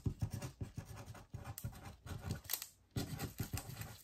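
Plastic packaging of a diamond painting kit being handled on a table: irregular rustling and scratching with light taps.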